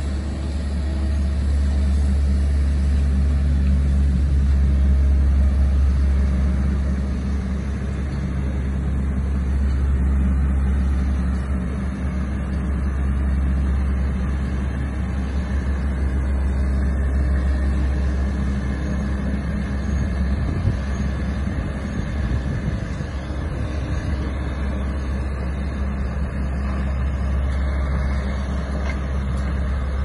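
Skid steer loader's engine running steadily as the machine drives and sweeps with a rotary broom attachment: a low steady drone that rises and falls a little in loudness.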